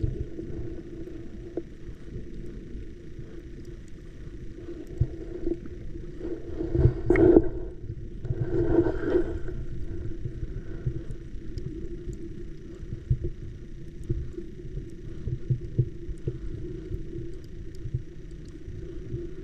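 A motor running with a steady hum over a low rumble, swelling louder twice, about seven and nine seconds in.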